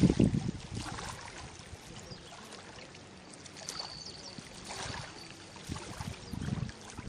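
Wind buffeting the microphone, heaviest in the first half second, then easing into a steady rush of wind and water with smaller gusts.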